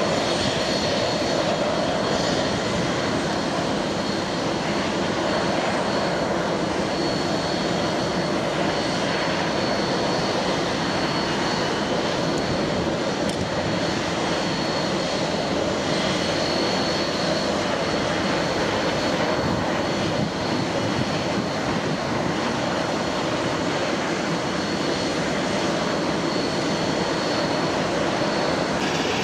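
Avro RJ100 jet airliner being pushed back, its turbine noise a steady high whine over an even broad rush.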